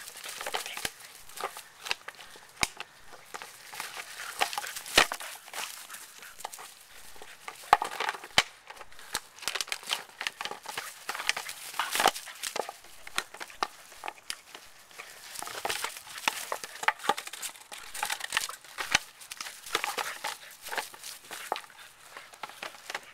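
Coca-Cola 2-liter plastic bottle crinkling and crackling as a Boston terrier grips and chews it, with irregular sharp cracks throughout.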